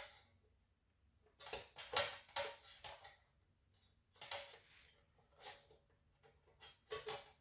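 Small metal parts of a panic-bar touch bar being handled: light clicks and clinks in short clusters with pauses between.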